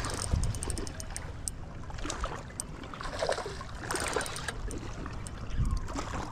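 Wind rumbling on the microphone while a spinning reel is cranked to bring a hooked largemouth bass in to the bank, with light ticks and bursts of water noise.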